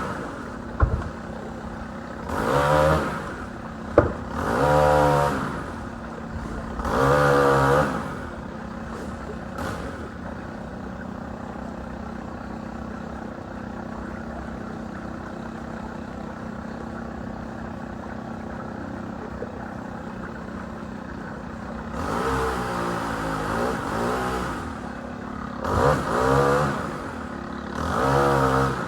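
Chainsaw revved in short bursts, about six times, each rev rising and falling over about a second, over a steady engine drone. A couple of sharp knocks sound early on.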